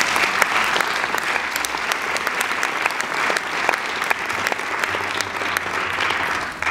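Audience applauding, a steady mass of hand claps.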